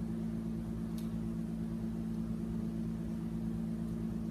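Steady low electrical-sounding hum with a low rumble beneath it, like an appliance or fan running in a small room, with a faint click about a second in.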